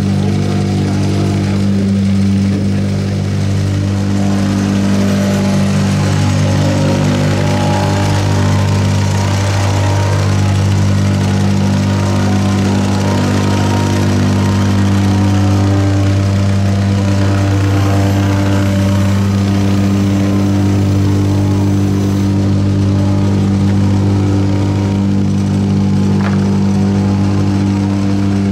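An engine running steadily with a constant deep hum that holds one pitch throughout.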